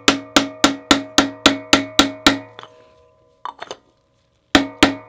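A hammer taps a steel Subaru factory cam-seal installer tool at a steady three to four strikes a second, each strike with a short metallic ring, driving a new OEM camshaft seal into the cylinder head. The strikes stop a little over two seconds in, a couple of light clicks follow, and the tapping resumes near the end.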